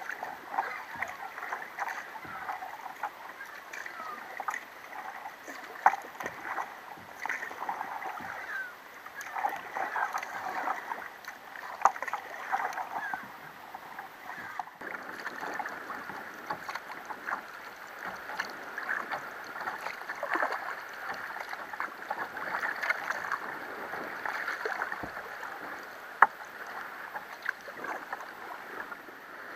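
Water washing and lapping against the hull of a moving sea kayak: a steady wash with many small splashes and drips, and a few sharper splashes.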